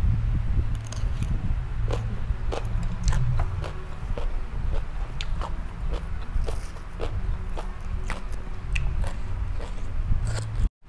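Close-miked chewing and biting of crunchy food, green papaya salad, with sharp crisp crunches about once or twice a second over a low, steady chewing rumble. The sound drops out for a moment near the end.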